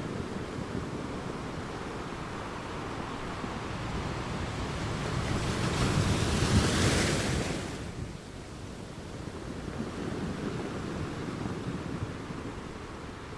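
Ocean waves washing on a beach: steady surf with one wave swelling louder around the middle and breaking, then falling away to a quieter wash.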